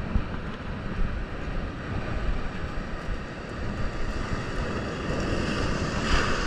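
Sea surf breaking and washing over shoreline rocks, with wind buffeting the microphone; a bigger wave crashes and sprays near the end.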